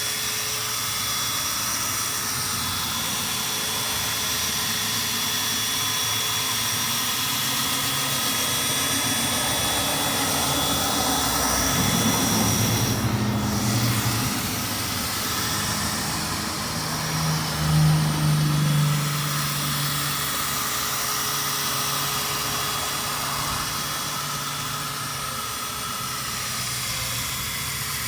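Electric drill running steadily with a sanding pad against a plastic headlight lens, a continuous motor whine whose lower tones shift for a few seconds around the middle.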